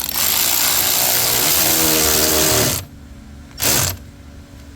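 Cordless power ratchet with a 7 mm socket running a screw down for about three seconds, its motor pitch rising slightly, then one short second burst.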